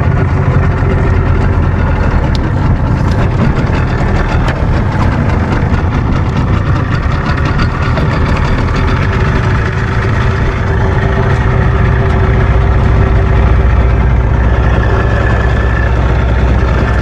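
Suzuki 15 hp outboard motor running steadily at low speed.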